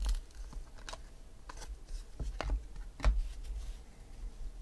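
A stack of Upper Deck baseball trading cards being flipped through by hand: cards slide off the pile and snap against one another, giving about five sharp clicks and light handling thumps.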